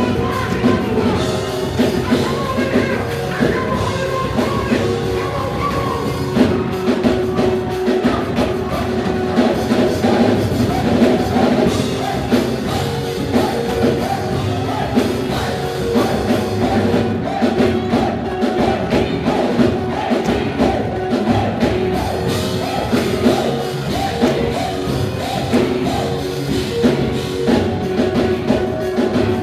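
Rock-style band music with a drum kit and singing, steady and loud throughout.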